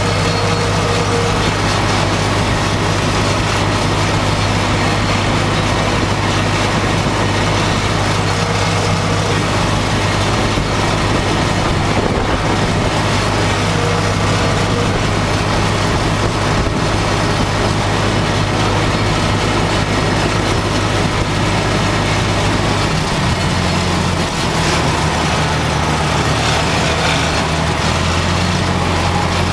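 John Deere 1030 tractor's three-cylinder diesel engine running steadily under load while mowing grass with a PZ-Zweegers mower, heard from the driver's seat in the cab. The engine note changes about 23 seconds in.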